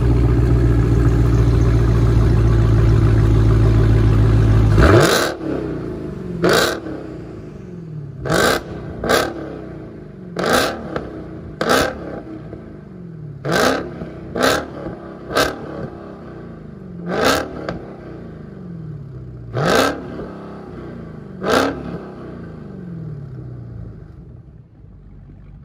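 Dodge Charger Hellcat's supercharged 6.2-litre Hemi V8, through a muffler-delete exhaust that keeps its resonators, held at steady high revs for about five seconds. It then drops to idle and is revved in about a dozen sharp throttle blips, each rising and falling back, and the idle fades near the end.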